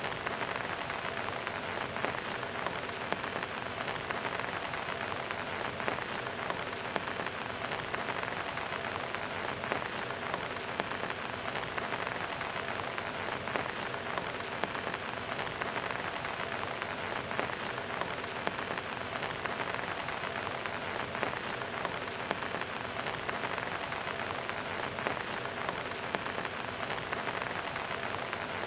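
Heavy rain falling steadily and splashing on a concrete wall top: a dense, even hiss made of countless small drop hits, with no change in strength.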